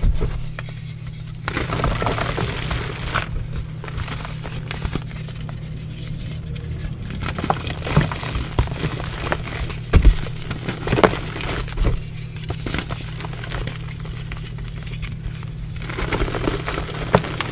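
Hands crushing and squeezing plain gym chalk, crumbling the blocks and loose powder into soft, dry crunches with sharper crackles now and then. A steady low hum runs underneath.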